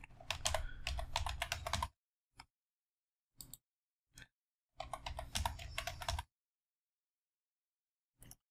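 Computer keyboard typing in two quick runs of keystrokes, the first about two seconds long and the second about a second and a half, with a few single clicks between them and one more near the end.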